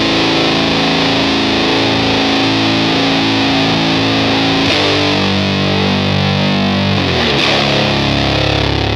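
Distorted electric guitar played through a Supercool Pedals Spritz! compressor into a higher-gain amp, chords ringing out with long sustain. The chord changes about five seconds in and again about seven seconds in, ending on a held low note.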